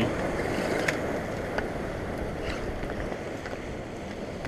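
Surf washing and breaking against jetty rocks, with wind buffeting the microphone, and a few small sharp clicks.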